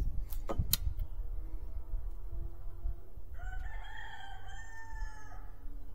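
A rooster crows once, a drawn-out call of about two seconds starting around three seconds in. A few sharp clicks come near the start, over a steady low rumble.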